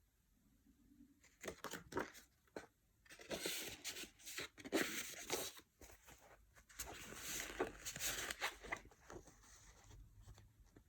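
Packaging being handled during an unboxing: a few light clicks, then two longer stretches of rustling and tearing, about three and five seconds in.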